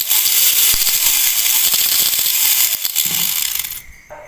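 Small electric motor driving a gear train, whirring with its pitch rising and falling as the speed changes. It cuts out shortly before the end.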